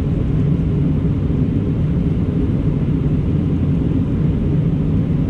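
Steady low rumble of an Airbus A319's engines and airflow, heard from inside the passenger cabin.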